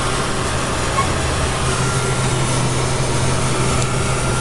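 Steady jet engine and airflow noise heard inside a KC-135's cockpit, a constant low drone with a hiss over it.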